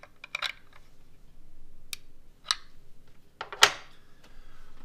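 Scattered light metallic clicks and clinks of a nut, shims and hand tools being handled while a sensor is shimmed and bolted down. The loudest is a sharp clack about three and a half seconds in.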